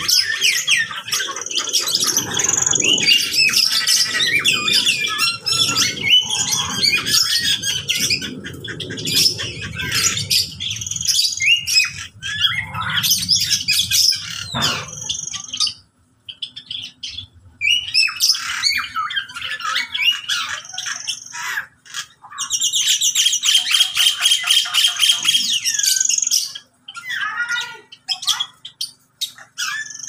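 A mixed aviary flock of parakeets, lovebirds, Java sparrows and mynas calling all at once: a dense chorus of chirps, squawks and squeals. A low rumble sits under the first half. A fast, rattling trill stands out for a few seconds past the middle.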